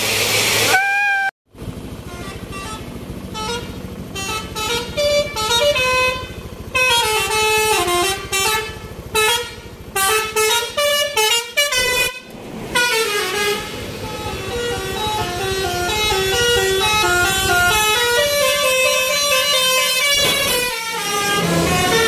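Indonesian tourist buses' 'telolet basuri' musical multi-tone air horns playing quick, stepping melodies of short notes rising and falling, in three clips one after another with cuts about a second in and about halfway, over bus engine noise.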